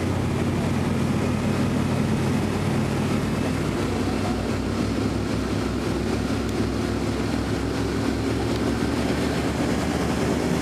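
Motorboat engine running at a steady speed, a low even drone.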